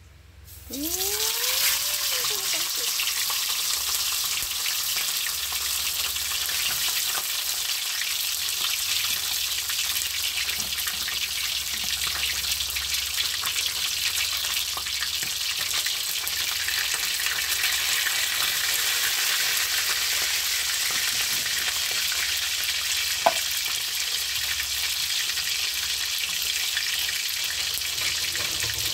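Whole apahap (Asian sea bass) lowered into hot oil in a wok. Loud, steady sizzling and spattering starts about a second in and runs on, with a brief rising-and-falling squeal as the fish goes in. A single sharp click comes about two-thirds of the way through.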